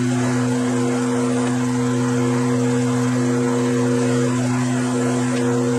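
Metal lathe running at a steady speed with an even, constant hum, turning a motorcycle front axle during thread cutting at its end.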